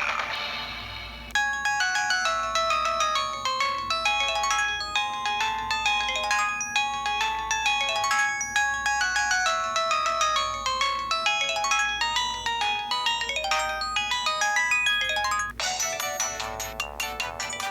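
Pantech C120 cell phone ringtones played through the phone's small speaker, sounding distorted and with no bass. One tone fades out, a new melodic polyphonic ringtone of quick single notes starts about a second in, and near the end it cuts to the next, busier ringtone.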